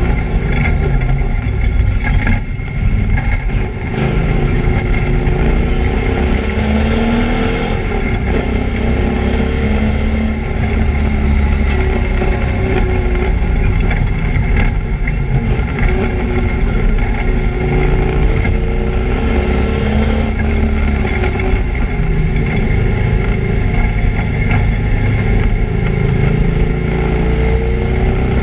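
A Camaro race car's engine running hard on track, its pitch rising and falling repeatedly as it revs up and down. The car is running with a misfire.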